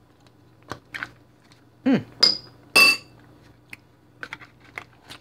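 A spoon clinking twice against a dish, with a ringing tone, amid light clicks and taps as the ice-cream pint and its lid are handled. A short falling squeak comes just before the clinks.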